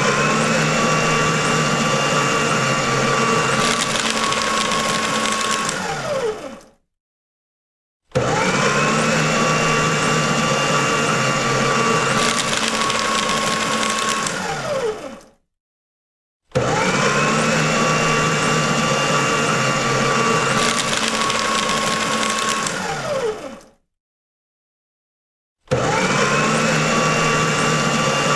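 Electric paper shredder motor starting with a rising whine and running steadily, with a rougher stretch partway through, then winding down with a falling whine. The run repeats three times with short silent gaps between, and a fourth start comes near the end.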